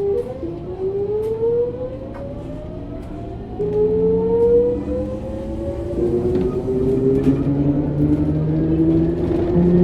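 Hitachi GTO-thyristor VVVF inverter and traction motor of a Sotetsu New 7000 series electric train accelerating from a stop: a siren-like whine that rises steadily in pitch and jumps in steps as the inverter changes pulse modes. This motor car is known for an unusual motor noise.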